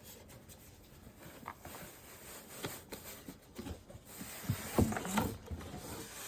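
Packaging being handled during an unboxing: scattered rustles, taps and light knocks of cardboard and plastic, busier and louder near the end.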